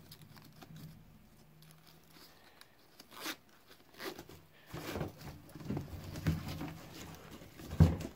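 Handling noise of nylon snowshoe binding straps and a boot being worked into them: scattered rustling, scraping and light knocks, mostly in the second half, with a louder thump near the end.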